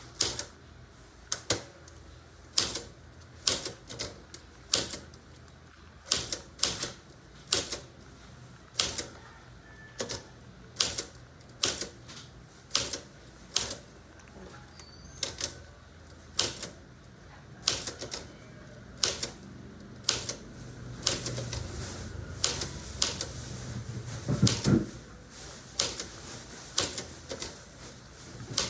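Vintage typewriter being typed on slowly: single sharp key strikes clacking at an uneven pace, about one or two a second. A longer, lower noise swells briefly about three-quarters of the way through.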